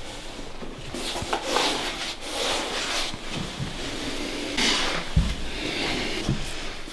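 Hands massaging a person's neck and jaw: irregular rubbing and rustling of skin against skin and cloth, with two soft low thumps near the end.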